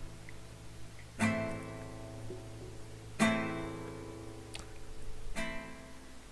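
Background music: acoustic guitar chords strummed about every two seconds, three times, each left to ring out.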